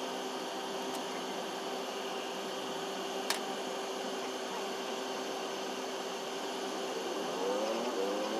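Steady mechanical hum with a constant tone, like a running fan or air-conditioning unit. A single sharp click comes about three seconds in, and short wavering pitched sounds appear near the end.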